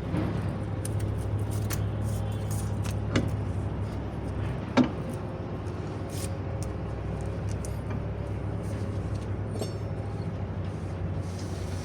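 Garage work sounds: scattered sharp metallic clicks and knocks, the loudest about five seconds in, over a steady low hum.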